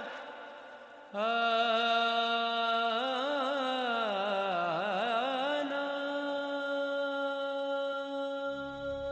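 Devotional backing music: a wordless chanted voice holds long notes, starting about a second in, wavering and dipping in pitch for a couple of seconds and then held steady. A low hum joins near the end.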